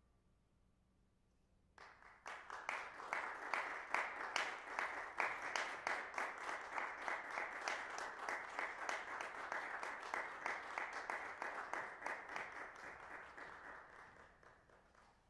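Audience applauding, beginning about two seconds in after a brief silence, with separate claps audible, then thinning and fading out near the end.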